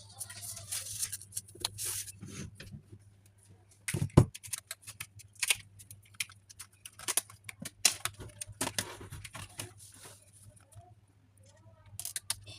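Handling noise: a run of irregular clicks, taps and short scrapes of hard objects being moved and worked, with one louder knock about four seconds in, over a steady low hum.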